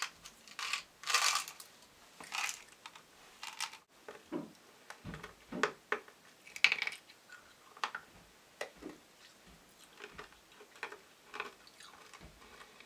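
Rummaging through a fabric Christmas stocking: small items click and knock together with light rustling, in scattered, irregular bursts.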